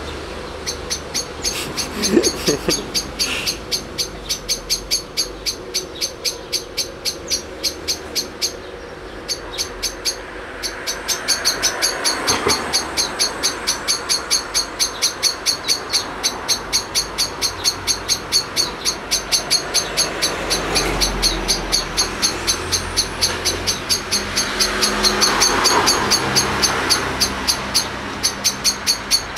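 Steady, rhythmic high-pitched chirping, about three short chirps a second, over a low background rumble.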